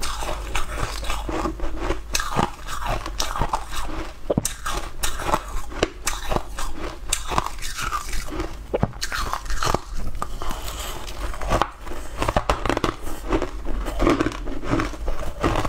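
A mouth crunching and chewing crushed ice close to the microphone: a fast, irregular run of sharp crunches.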